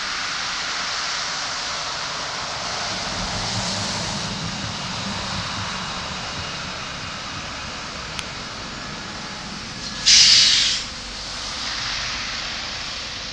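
Articulated tram running in on rails, a steady rolling rumble with a deeper rumble a few seconds in. About ten seconds in comes a short, loud hiss.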